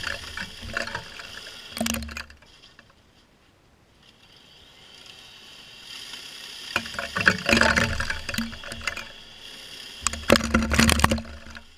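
Ryobi 40-volt Expand-It snow thrower attachment running and throwing snow, a hum with a swishing spray that comes in surges. It drops almost to quiet about three seconds in, builds again, and is loudest in two surges near the end.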